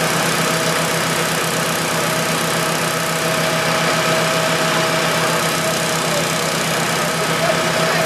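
An engine running steadily at constant speed, a steady hum over a broad rushing noise.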